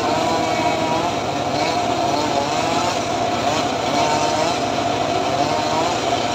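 Homemade engine-driven circular saw running continuously while ripping a board of hard, dry acacia, its engine note wavering up and down as the blade takes the load.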